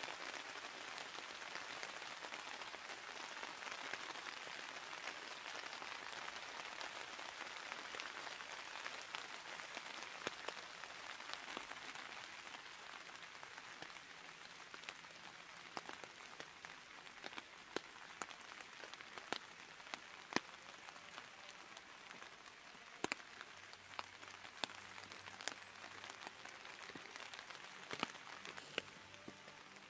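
Faint steady rain hiss with scattered sharper drop ticks. The hiss eases over the first dozen seconds, leaving a lighter hiss with distinct individual drops.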